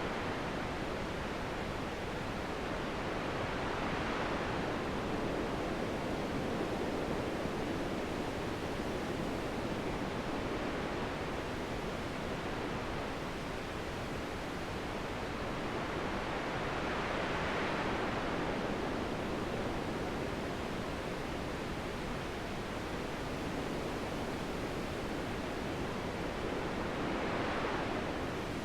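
Steady wind noise that swells gently in gusts about every ten seconds, three times.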